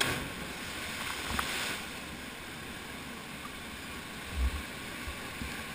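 Small waterfall pouring into a canyon pool: a steady rush of water, with a short splash about a second and a half in and a dull low thump a little past four seconds.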